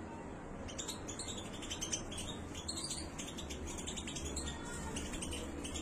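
Weaned European goldfinch chicks feeding, with a rapid run of short, high ticks starting about a second in.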